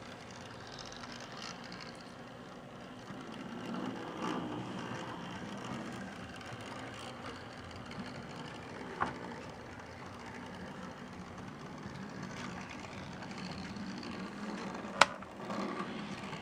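A 1960s-built HO-scale 0-6-0 steam switcher model running along the track, its small electric motor and gears making a steady whirr. There is a small sharp click about nine seconds in and a much louder sharp click near the end.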